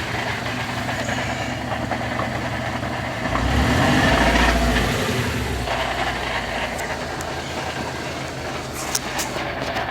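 A 2006 Subaru Legacy GT with a five-speed manual gearbox running, with a mechanical noise the owner places in the middle of the car around the transmission and takes for a failing gearbox. The sound swells louder with a deep rumble for about two seconds near the middle, and there are a couple of sharp clicks near the end.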